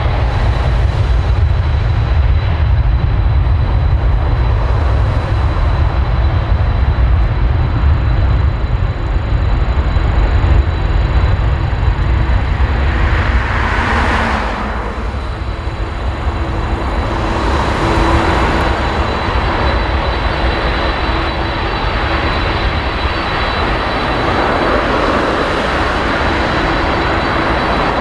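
Boeing 747-400 freighter's four jet engines running at taxi power: a steady low rumble with a thin, even high whine over it.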